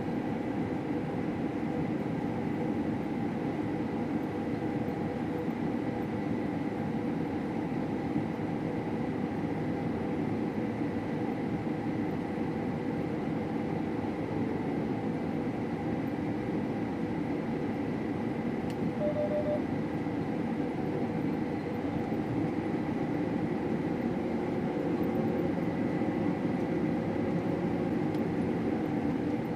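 Combine harvester running steadily while cutting wheat: an even mechanical drone with a thin steady whine above it.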